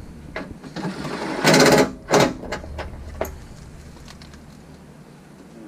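A power driver run in a short burst to tighten a fastener, about a second and a half in, followed by a briefer burst and a few light clicks of tools and parts.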